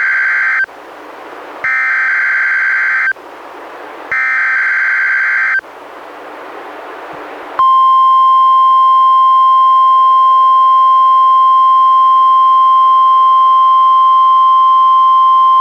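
NOAA Weather Radio Required Weekly Test signal from a weather radio receiver: three digital SAME header data bursts, each about a second and a half long with short gaps between them, the first already under way. About seven and a half seconds in, the steady 1050 Hz warning alarm tone starts and holds.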